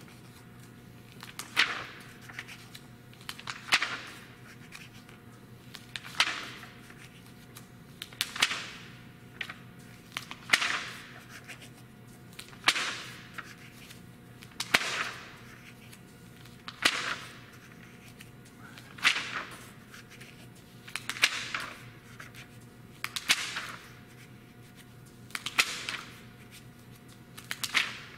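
Glossy magazine pages being turned by hand, each turn a sharp flick, about one every two seconds.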